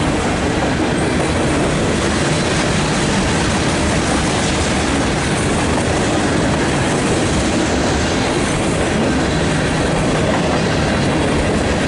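Manifest freight train rolling past, a steady loud run of steel wheels on the rails with no letup.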